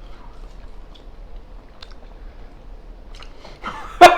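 Quiet chewing and small clicks of eating, then two loud sharp sounds close together near the end.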